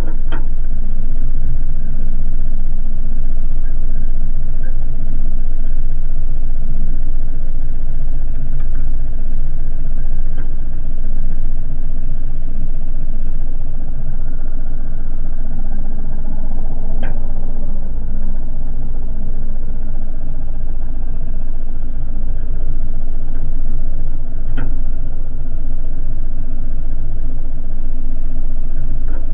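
Small outboard motor on an aluminium boat running steadily under load while towing a Cessna floatplane, with two brief clicks in the second half.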